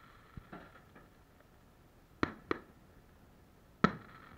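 Fireworks going off: a few sharp bangs with a short trailing echo, two close together about two seconds in and the loudest one near the end.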